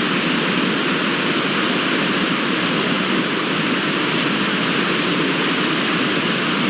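Steady rushing water, an even, unbroken roar with no surges or pauses.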